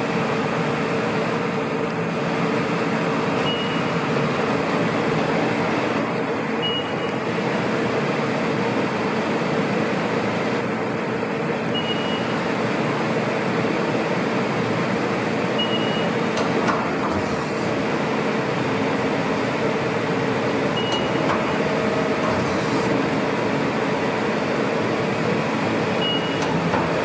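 Steady machinery hum in a machine shop, with a constant mid-pitched tone running through it. A short high beep sounds every few seconds, six times.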